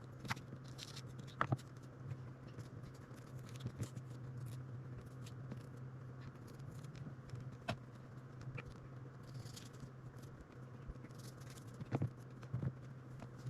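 A kitchen knife scraping seeds out of jalapeno halves and tapping on a cutting board: scattered light clicks and short scrapes, over a steady low hum.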